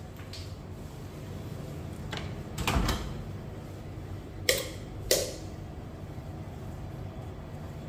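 Built-in Bosch microwave's door being worked by hand: a rattling knock about two to three seconds in, then two sharp clicks about half a second apart as the door latch releases and the interior light comes on.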